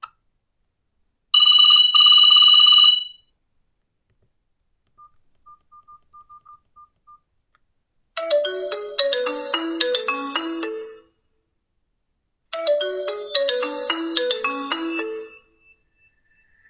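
Nokia 5310 phone playing its default ringtones. First comes a loud, buzzy steady tone of about two seconds, then a few soft short beeps, then a short electronic melody of falling notes that plays twice.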